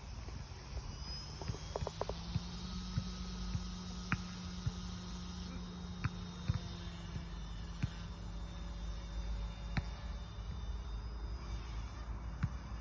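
Small OMP Hobby electric RC helicopter in flight, its motors and rotors giving a steady buzzing hum with a faint high whine, and occasional light clicks.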